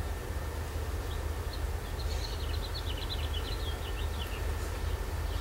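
A small bird singing a quick run of short high chirps, starting about two seconds in and lasting some two and a half seconds, over a steady low outdoor rumble.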